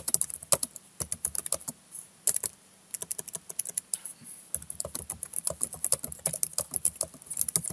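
Typing on a computer keyboard: quick, irregular key clicks in runs, with brief pauses between words.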